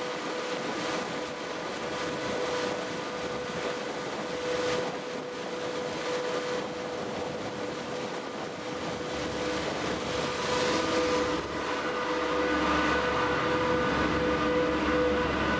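Passenger ferry under way: a steady engine drone with a constant hum, over the rush of the wake along the hull. The low rumble grows louder about nine seconds in.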